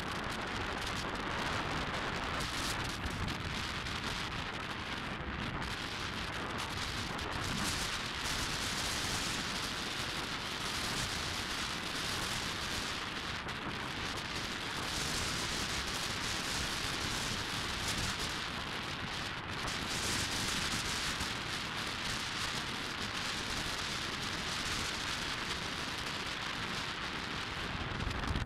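Wind rushing over the microphone of a moving bike: a steady, even rushing noise, with road and traffic noise mixed in.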